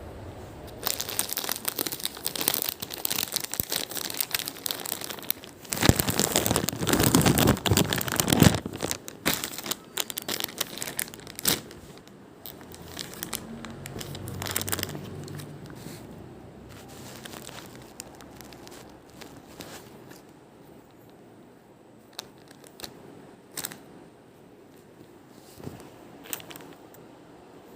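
Packaging being handled and crumpled: dense crinkling and rustling for the first twelve seconds or so, loudest around the middle, then quieter with a few scattered clicks and rustles.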